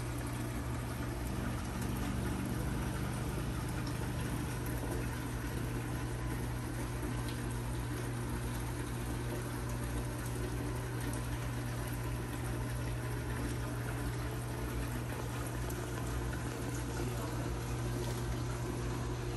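Reef aquarium equipment running: a steady rush of moving water from the circulation, sump and protein skimmer, over a steady low pump hum.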